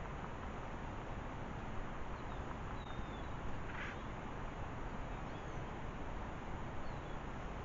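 Steady outdoor background hiss with a few faint, short bird chirps, and one brief sound about four seconds in.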